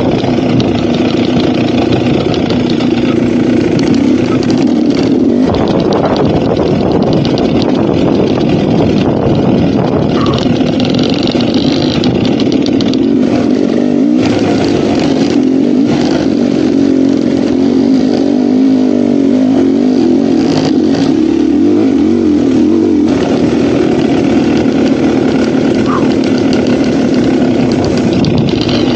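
GasGas dirt bike engine running while being ridden, the throttle opening and closing so the engine note keeps rising and falling.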